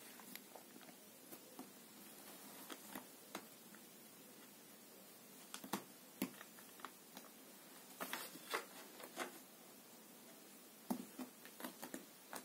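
Faint, irregular rustles and soft clicks from a tabby cat rolling and shifting its body on a pile carpet. They come in small clusters about halfway through, around two-thirds through and again near the end.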